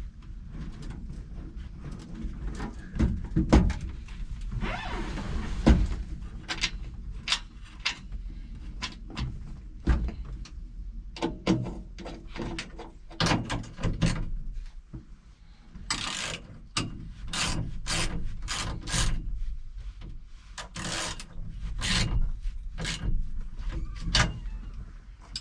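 Hand work on a truck's hinged instrument panel as it is put back together: scattered sharp clicks and knocks with some rubbing and scraping, and quick runs of clicks in the second half.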